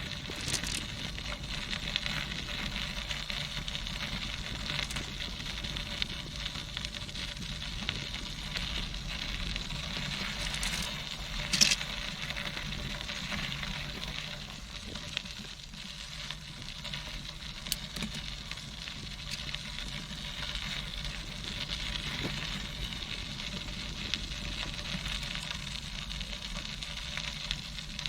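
Tandem bicycle rolling along a trail: a steady crackling hiss of the tyres on the path surface over a low rumble, with scattered small clicks and a sharper click about twelve seconds in.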